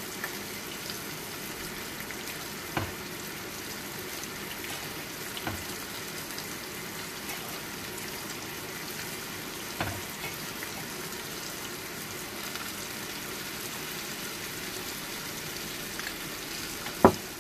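Green bell pepper pieces sizzling steadily in butter in a frying pan, with a few faint clicks. A sharp knock near the end as a plate is set down on the counter.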